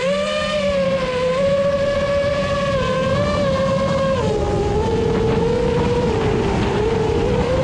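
Quadcopter drone's motors and propellers whining, the pitch wavering and dropping a step about four seconds in. Beneath it there is a steady low rumble of wind on the microphone.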